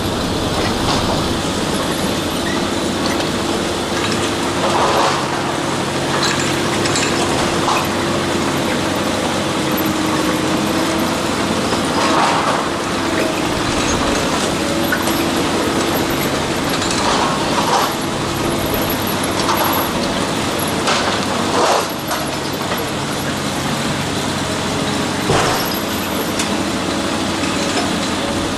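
Heavy diesel machinery running steadily, with scattered short clanks and crunches on top.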